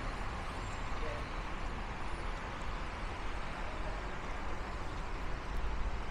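Steady city street noise on a rainy night: road traffic running on wet streets, an even hiss with a low rumble underneath.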